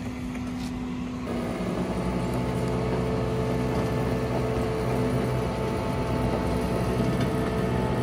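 Flatbed tow truck's engine and hydraulic winch running steadily as the winch pulls a pickup up the tilted bed. A little over a second in, a new steady whine joins and the sound gets slightly louder.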